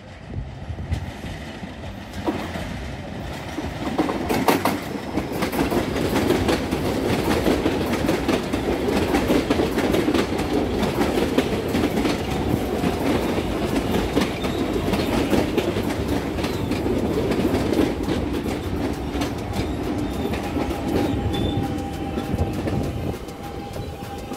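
Electric multiple-unit commuter train running past close by, its wheels clacking over the rail joints. The sound grows louder a few seconds in, then eases near the end, when a steady whine comes in.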